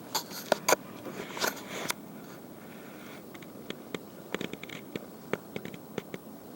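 Close rustling and sharp clicks, a dense cluster in the first two seconds, then scattered single clicks.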